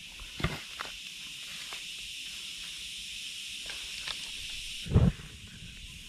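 Light knocks of split wood and stones being set down on the ground for a campfire, over a steady hiss, with a heavier thump about five seconds in.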